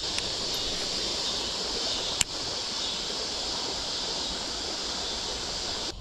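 Steady rush of creek water running over a shallow rocky riffle, with one sharp click about two seconds in.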